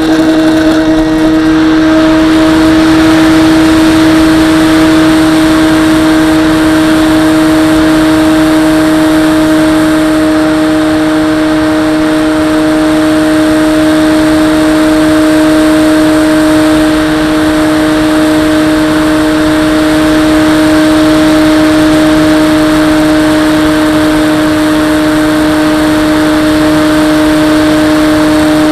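Skyhunter RC plane's electric motor and propeller running hard, heard up close from a camera on the airframe: a loud, steady high-pitched whine holding one pitch through the takeoff and climb.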